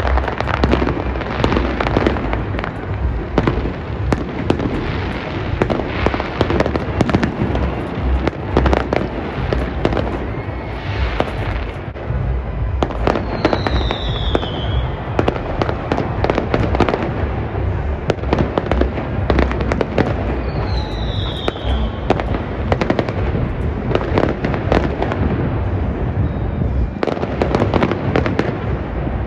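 Fireworks display: a dense, unbroken barrage of bangs and crackling, with two short falling whistles partway through.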